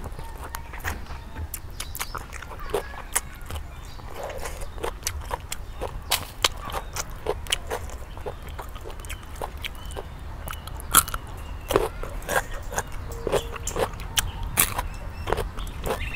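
Eating sounds: chewing grilled chicken and fresh vegetables, with many short, irregular wet clicks and smacks, over a steady low hum.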